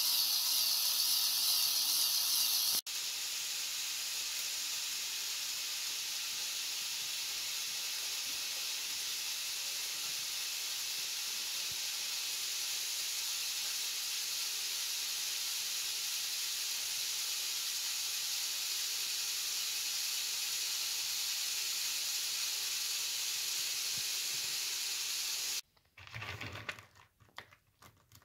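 A steady hiss, louder for the first few seconds, then cutting down abruptly and running on evenly. Near the end it stops suddenly, giving way to light clicks and rattles of wood pellets being dropped by hand into a cardboard box.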